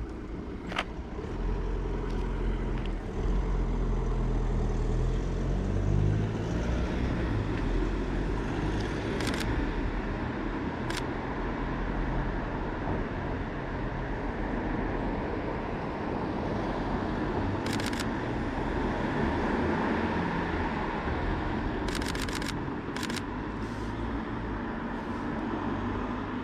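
Steady street traffic noise with the low rumble of passing cars, broken by a few short sharp clicks, a quick cluster of them near the end.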